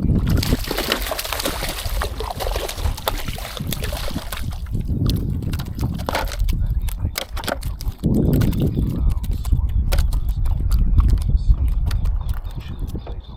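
Water splashing and sloshing with repeated knocks as a feisty hooked bluefish thrashes against the kayak, with wind buffeting the microphone.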